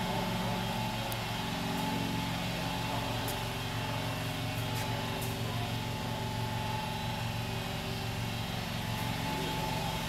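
Kenworth dump truck's Cummins 550 diesel engine idling steadily, with a low, even drone and a faint steady whine above it.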